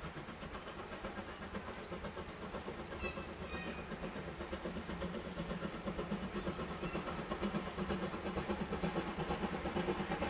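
Steam locomotive approaching, chuffing in a fast, even rhythm that grows steadily louder.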